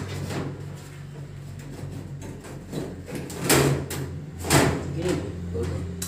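Handling noise at a washing machine: a few scraping knocks as hands work the metal back panel and hoses, the loudest two about a second apart midway through, over a steady low hum.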